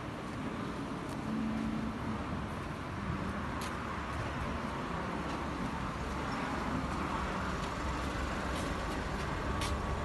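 Proton X50 Flagship's 1.5-litre turbocharged three-cylinder engine idling after a remote start, a steady low hum that grows a little louder in the second half, with a few faint clicks.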